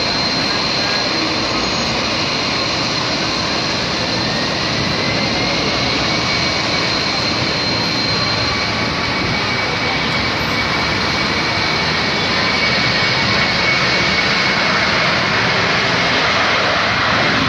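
Boeing 747's four jet engines running as it taxis: a steady loud roar with a high, even whine over it, growing a little louder about two-thirds of the way through.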